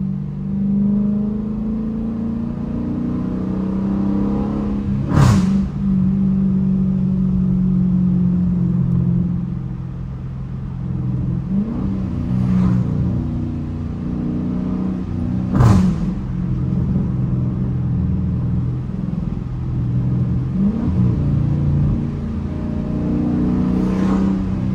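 Dodge Challenger R/T's 5.7-litre Hemi V8 running steadily while cruising on a wet road, heard from inside the cabin, its pitch rising and falling a little. A few sharp clicks cut through, the loudest about five seconds in and again about sixteen seconds in.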